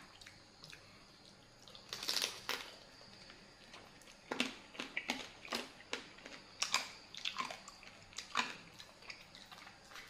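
Close-up sounds of a person eating blue swimmer crab: irregular crisp crunches and clicks of chewing and biting on crab meat and shell.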